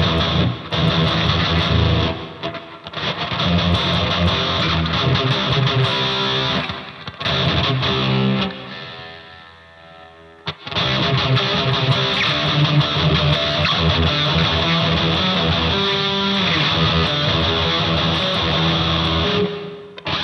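Electric guitar with high-gain distortion played through a combo amp fitted with Celestion speakers, in chords and riffs. About eight seconds in, a chord is left to ring and fade. Playing starts again about two seconds later, with a short break near the end.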